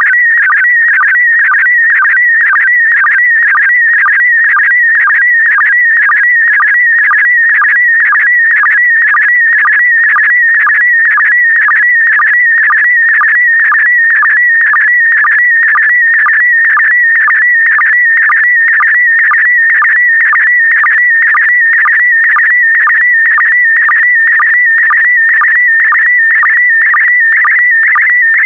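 Slow-scan television (SSTV) signal in PD120 mode: a high, warbling electronic tone that jumps in pitch as it sends the pixels, broken by a short low sync blip about twice a second. Each blip marks the start of a new pair of image lines.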